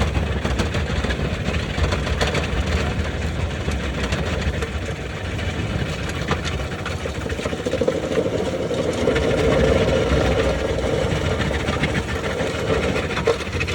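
Skid steer engine running under load while its hydraulic fixed-tooth road planer mills the road surface: a continuous machine noise scattered with sharp cracks. A humming tone grows stronger past the middle and fades near the end.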